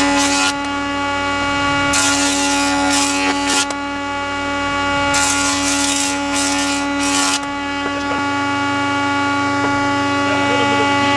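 Jointer motor running with a steady whine while a birch board is fed over the cutterhead twice. Each pass is a burst of cutting noise of roughly two seconds, about two and five seconds in, as the edge is straightened.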